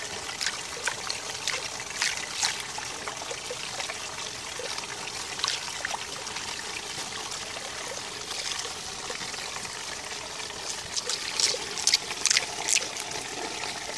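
Backyard fountain water trickling steadily, with sharp wet snaps and splashes of a dog biting at foam on the water's surface, a cluster of them near the end.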